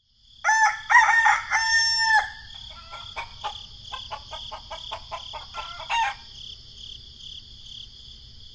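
A rooster crowing once, a long multi-part cock-a-doodle-doo, followed by a run of short clucks. A steady high-pitched chirring ambience runs underneath and stops just before the end.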